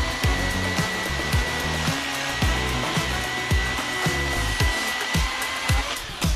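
Milwaukee Fuel battery chainsaw's electric motor running with a steady high whine that stops near the end, under background music with a steady beat.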